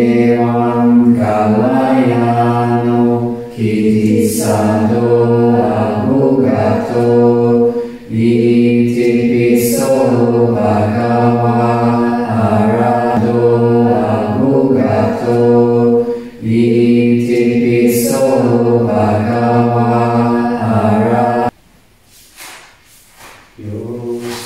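Buddhist chanting in the Thai forest tradition, likely in Pali: a low, steady, near-monotone chant in long phrases, stopping for a short pause near the end before it resumes.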